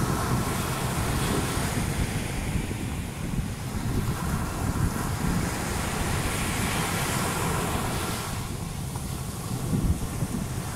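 Small waves breaking and washing up a sandy shore, under a steady rush of wind buffeting the microphone.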